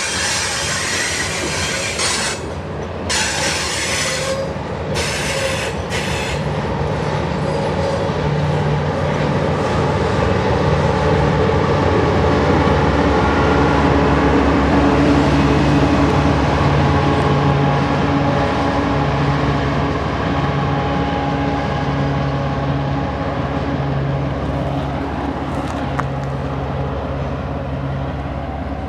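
Loaded coal train of hopper cars rolling past, wheels clattering and squealing on the rails as it runs downhill under braking. Around the middle a mid-train Union Pacific distributed-power locomotive passes with a steady engine drone, and this is the loudest stretch.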